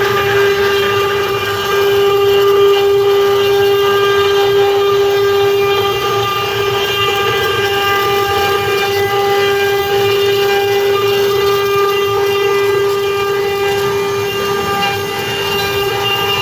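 CNC wood router spindle running with a steady high whine, with the rumble of the machine beneath it.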